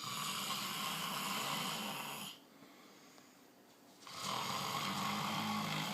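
Loud snoring: two long snores of about two seconds each, rasping with a low buzz. The second starts about four seconds in, after a quiet pause.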